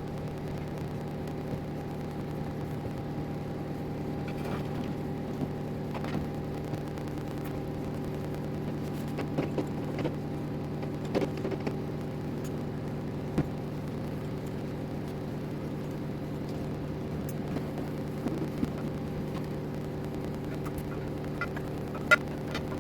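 Small CNC router running: a steady motor hum with a few light clicks and ticks, one sharper click near the end.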